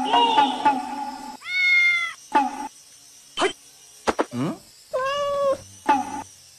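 Grey tabby kitten meowing: a held meow about a second and a half in, a few short calls including one falling cry, and a second held meow about five seconds in.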